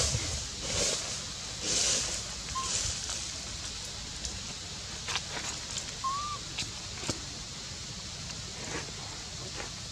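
Dry leaf litter rustling and crackling as a baby macaque shifts and handles leafy stems, with a few soft rustles early on giving way to scattered sharp crackles. Two brief high chirps sound in the background, one a few seconds in and one about halfway.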